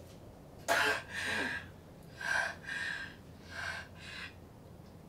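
A woman in labor breathing hard: three sharp in-and-out breaths, each pair fainter than the last.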